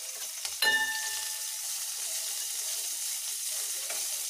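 Chopped green chillies, garlic and whole spices sizzling steadily in hot mustard oil in a pan, with one sharp ringing metallic clink less than a second in.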